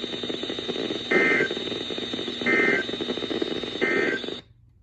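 Emergency Alert System end-of-message data bursts: three short, harsh digital squawks about a second and a half apart over radio static. Near the end the broadcast signal and its static cut off abruptly.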